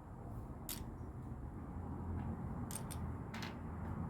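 A few faint, sharp clicks of small LEGO plastic parts being handled and snapped together as a minifigure is assembled, over a low steady background hum.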